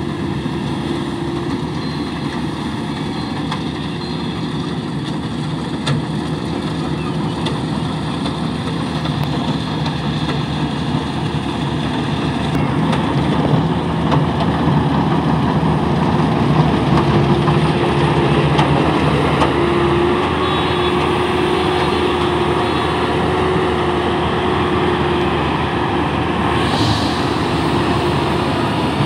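Rice combine harvester running steadily, its engine hum mixed with dense machinery noise. It grows louder about halfway through and then holds.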